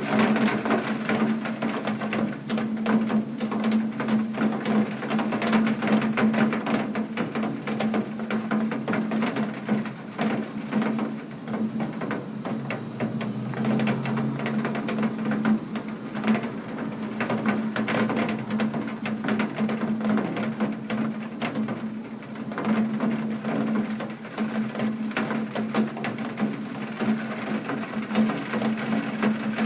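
Steady rain, a dense stream of small drop impacts on a hard surface, over a steady low hum.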